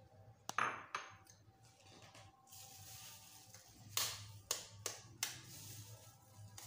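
Glass bowls clinking as they are handled, then about four sharp taps roughly half a second apart: an egg being knocked against a bowl's rim to crack it.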